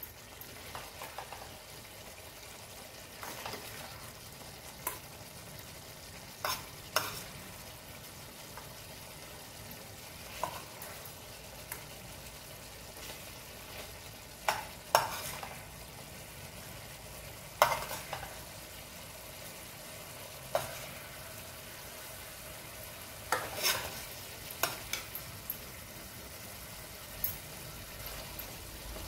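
A metal spoon stirring chicken and potato curry in a kadai over a steady low sizzle, with sharp clinks of the spoon against the pan and a steel bowl every second or two as pieces are lifted out.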